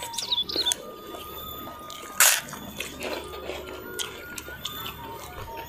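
Close-miked chewing and wet mouth sounds of people eating by hand, with scattered small clicks and one loud sharp crunch about two seconds in.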